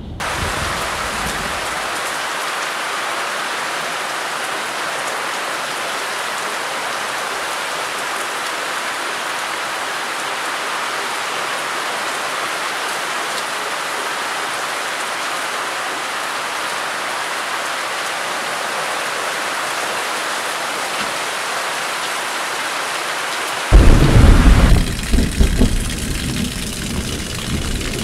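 Steady rain falling, an even hiss. Near the end a sudden loud low rumble breaks in and swells and fades unevenly.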